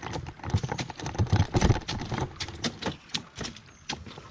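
Knocks and taps in a small boat as someone shifts about in it. A few dull knocks come in the first two seconds, followed by a run of irregular sharp clicks.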